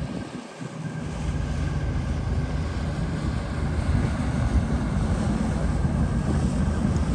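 Wind buffeting the microphone over the steady low rumble of boat engines, from a commercial fishing trawler and a small motorboat passing through the inlet.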